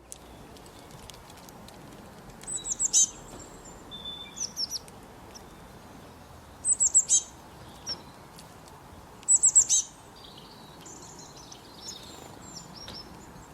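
Small bird calling: three bursts of quick, high, falling notes, a few seconds apart, with softer chirps between them, over a steady background hiss.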